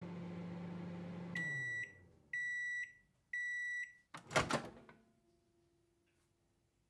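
Microwave oven humming, its hum winding down in pitch as it stops, then three long completion beeps about a second apart. About four seconds in comes a brief clatter of the door opening.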